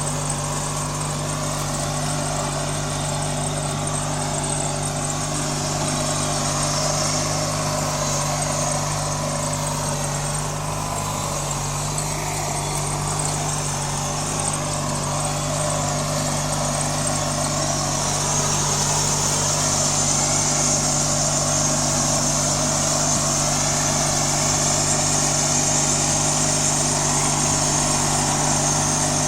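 18 hp V-twin riding lawn mower engine running steadily, a little louder over the second half.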